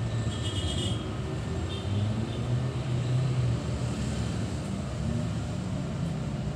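Steady low rumble of outdoor background noise, with no speech.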